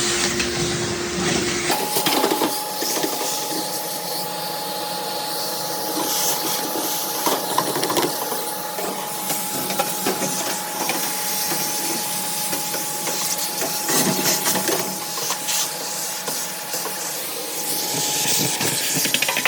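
Vacuum cleaner running steadily with a constant whine and hissing air while lint is cleaned out of a dryer, with rubbing and scraping from the nozzle or brush. About two seconds in, the low rumble drops away and the whine jumps higher, then holds.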